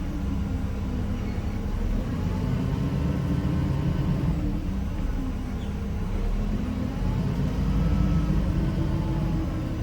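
Cummins ISM diesel engine of a 1993 Gillig Phantom transit bus running under way, heard from inside the bus, with its unusual humming note. The engine note sinks about halfway through and climbs again near the end.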